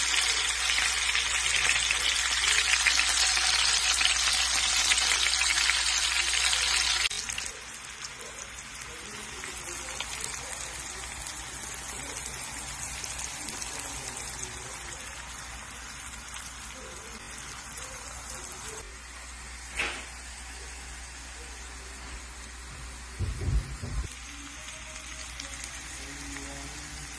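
Peeled hard-boiled eggs frying in hot oil and ghee, a loud steady sizzle that drops off abruptly about seven seconds in. Then sliced onions frying in bubbling oil with a quieter, steady sizzle, broken by one sharp click and, a few seconds later, a brief low thump.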